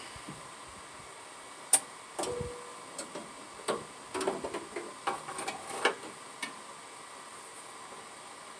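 Scattered light clicks and rattles of small metal parts being handled while fitting a kickdown linkage and its keeper clip, with one sharp click just under two seconds in.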